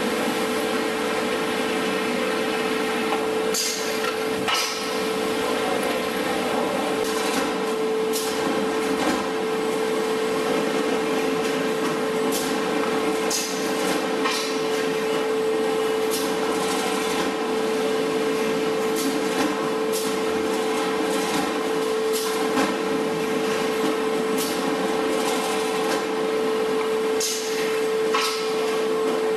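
Chang-I CI-VCB4-IVS veneer core builder line running: a steady machine hum with a constant mid-pitched whine, and irregular sharp clacks every second or two.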